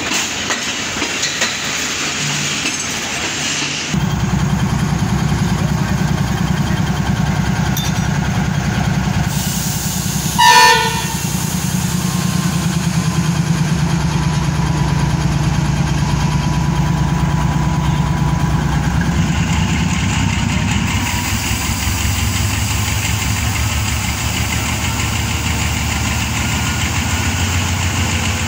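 Pakistan Railways AGE-30 diesel-electric locomotive's engine running close by, getting much louder about four seconds in and changing note again near twenty seconds. A single short horn blast sounds about ten seconds in.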